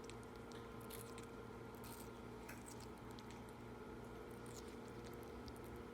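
Indian ringneck parakeet biting and chewing watermelon: faint, irregular small wet clicks and crunches from its beak in the juicy flesh, over a steady low hum.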